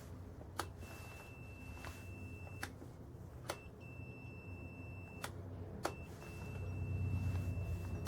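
Multimeter continuity buzzer beeping three times, each a steady high beep lasting a second or two, with sharp clicks as the test probes touch and lift off the switch's red and red/black wire connections. Each beep signals continuity: the switch circuit is closed.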